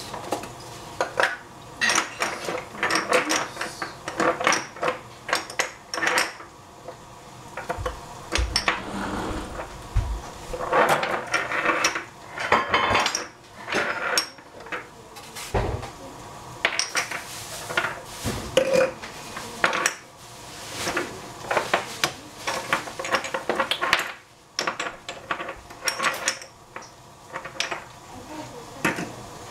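Kitchen utensils and cookware clattering: irregular clinks, knocks and scrapes of cutlery against pots and dishes, with a few duller thumps.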